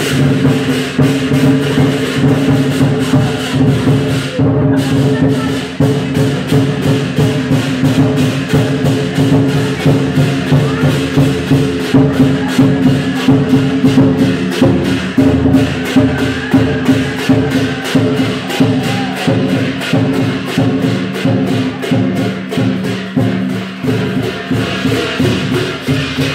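Lion dance percussion: drum, cymbals and gong beating a fast, continuous rhythm of about four or five strikes a second, with the metal ringing on under the beats.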